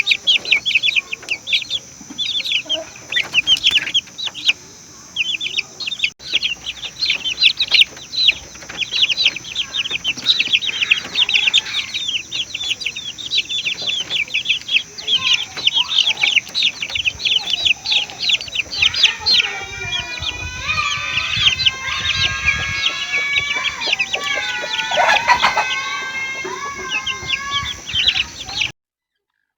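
A flock of lovebirds chattering: dense, rapid high-pitched chirps. From about two-thirds of the way through, a steadier, lower-pitched sound with several tones joins in. Everything cuts off suddenly just before the end.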